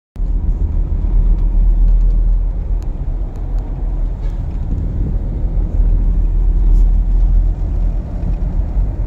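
Steady low rumble of a moving vehicle heard from inside, road and engine noise with no clear rise or fall.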